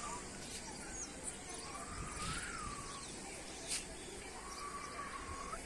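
Faint wind noise under three drawn-out whistled bird calls, each about a second long and rising then falling in pitch, with a single sharp click about two-thirds of the way through.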